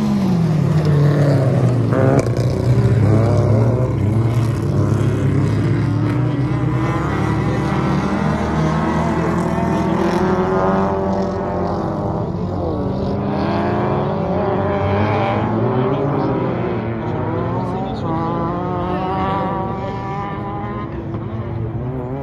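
Dirt-track race car engines revving hard, their pitch rising and falling through gear changes and overlapping as several cars lap. A car passing close drops sharply in pitch right at the start, and the engines grow fainter toward the end as the cars move away.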